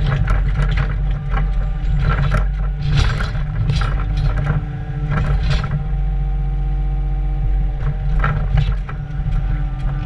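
New Holland mini excavator's diesel engine running steadily while its bucket digs into a bank of soil and stones, with bursts of scraping and clattering as the steel bucket tears through the stony ground.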